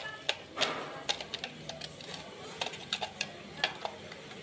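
Screwdriver working the screws out of a plastic motorcycle speedometer housing: irregular light clicks and scrapes of the tool and the casing being handled.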